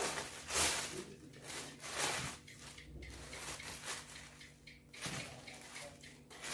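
Rustling and crinkling of a plastic bag being handled, in a string of short noisy bursts, the loudest near the start.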